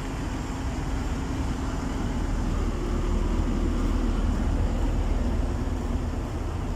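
An engine running steadily with a low rumble, growing a little louder about three seconds in and easing off near the end.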